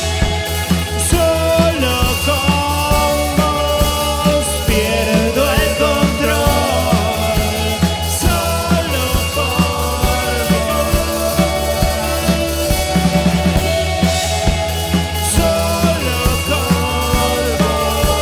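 A rock band playing live: electric guitar, keyboards and drum kit over a steady beat.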